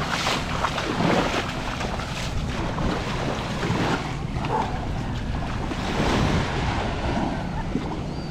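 Sea waves washing onto a sandy beach, the rush of the surf swelling and easing, with wind buffeting the microphone.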